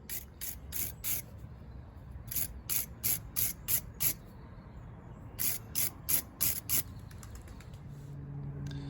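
Wire brush scrubbing old threadlocker off the threads of a steel brake caliper carrier bolt: quick back-and-forth strokes, about three a second, in three short bursts with pauses between.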